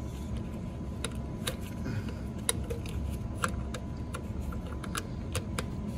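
Irregular small clicks and taps of metal and plastic as the wiring and terminal hardware are fitted by hand to a newly installed starter's solenoid, over a steady low background hum.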